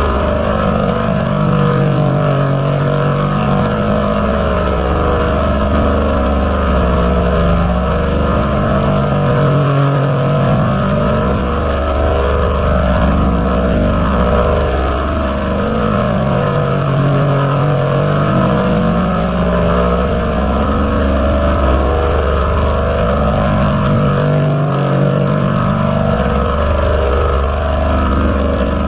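Heavily processed 'G-Major' meme audio effect: a loud, dense, bass-heavy distorted sound that repeats as a loop about every seven and a half seconds.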